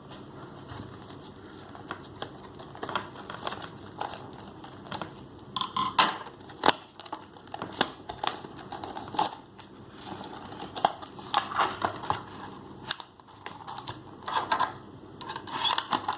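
Hands opening a small earphone retail box: irregular clicks, taps and crinkling of cardboard and plastic packaging.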